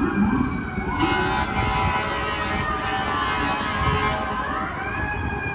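Emergency vehicle siren wailing in city traffic, slowly falling in pitch, with a long steady horn blast from about a second in and the siren rising again near the end.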